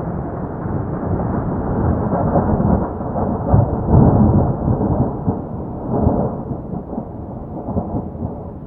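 A long roll of thunder after a lightning strike. It rumbles, swells again about three and a half to four seconds in and once more around six seconds, then slowly dies away.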